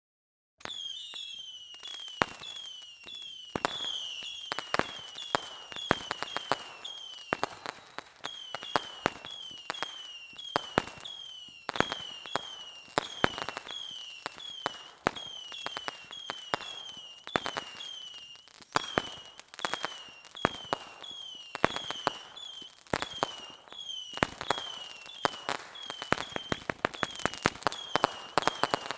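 Fireworks going off: a dense run of sharp cracks and pops, mixed with short falling whistles several times a second.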